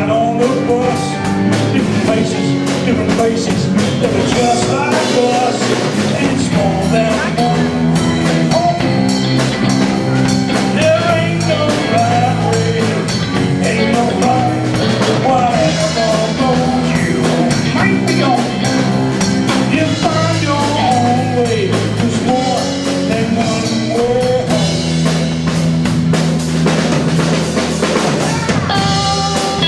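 Live blues band playing: drum kit, electric bass and electric guitar under a bending, wavering lead line of blues harmonica played into a cupped microphone, alternating with lead vocals.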